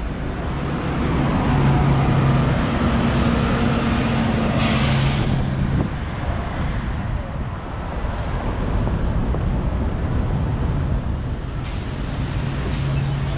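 Busy city road traffic, with a heavy vehicle's engine running close by and a short burst of hissing air about five seconds in.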